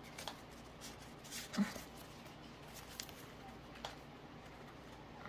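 Paper challenge cards being thumbed through by hand: faint rustles and soft ticks of card on card, with a brief low knock about a second and a half in.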